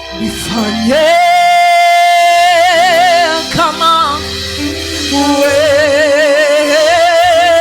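Worship music: a singer holds two long notes with vibrato, the second sliding down at the end, over sustained keyboard chords.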